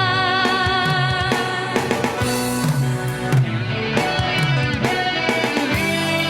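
Indonesian pop-rock band music, with guitar and drum kit playing an instrumental passage between sung lines.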